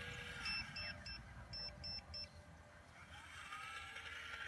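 Hydraulic pump of a radio-controlled CAT 336 excavator model whining, its pitch rising and falling as the boom and arm swing. Six short high-pitched electronic beeps, in two sets of three, sound in the first half.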